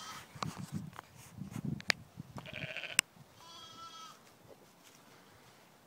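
Sheep bleating twice, the second call quavering, over low rumbling and a few sharp clicks, the loudest click about three seconds in.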